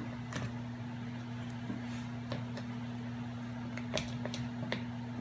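A few light clicks and knocks of kitchen utensils against a bowl while flour is measured out, over a steady low hum.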